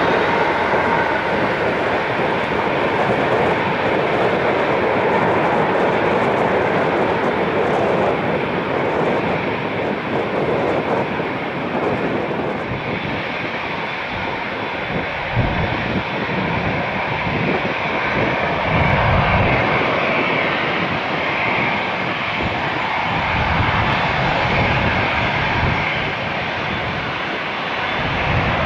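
Jet airliner's engines running as it passes, a steady roar of noise. From about halfway on, gusts of wind buffet the microphone in uneven low rumbles.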